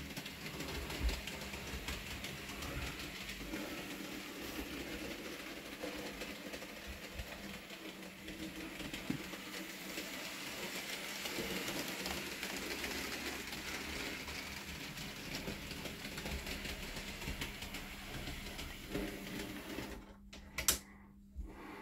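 Bachmann Peter Sam model locomotive running around a model railway track with its coaches: a steady mechanical whirr with fine clicking clatter from the wheels on the rails. Near the end it drops away suddenly, leaving a few separate clicks.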